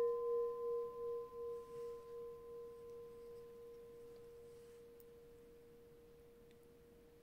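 A singing bowl rings after a single strike. It holds one clear tone with a fainter higher overtone, wavering in loudness about twice a second as it slowly fades away.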